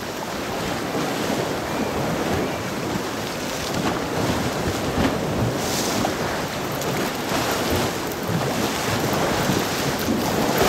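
Sea waves washing on the shore, with wind buffeting the microphone in a steady rush of noise.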